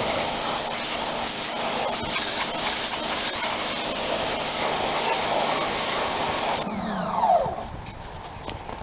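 Sun Joe SPX 3000 electric pressure washer spraying: a steady hiss of the high-pressure water jet over the motor's hum. It cuts off about six and a half seconds in as the trigger is let go, followed by a falling whine.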